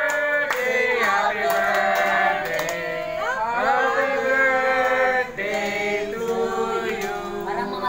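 A group of people singing a birthday song together in long held notes, clapping along.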